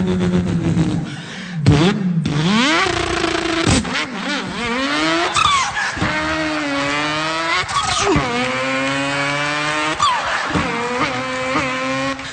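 A man imitating a racing car engine with his voice: the pitch climbs steadily as if revving through a gear, then drops sharply for a shift, about five times over.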